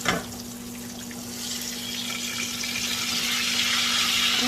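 A pork chop frying in butter and olive oil: a short knock at the start, then the hiss of the sizzle swelling steadily louder over a faint steady hum.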